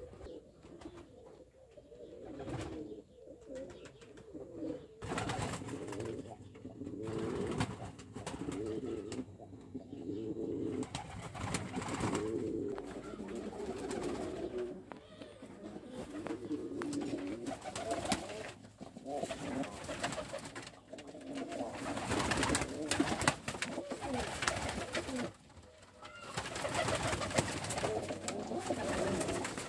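Domestic pigeons cooing over and over in their loft, several birds at once. The cooing gets louder and busier in the last few seconds.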